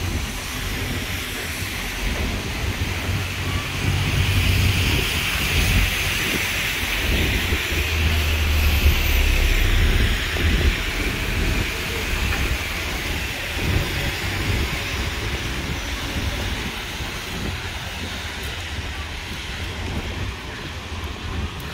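Street traffic on a rain-soaked road: a steady hiss of tyres on wet tarmac that swells for several seconds as vehicles go by, over a low rumble.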